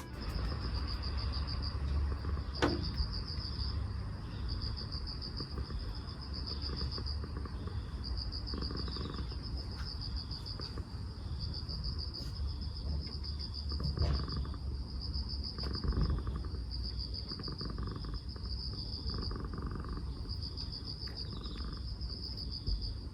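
An insect chirping in high trills about a second long, repeated every second or so, over a steady low outdoor rumble. There is one sharp click a few seconds in.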